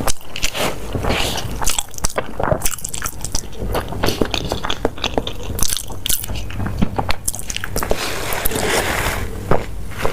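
Close-miked eating sounds: irregular biting, chewing and wet mouth smacks, with many short, sharp clicks.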